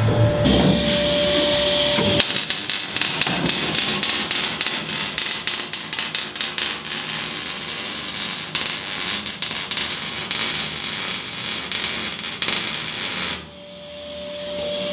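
MIG welding arc on steel plate, a dense, fast crackle that starts about two seconds in and cuts off abruptly near the end.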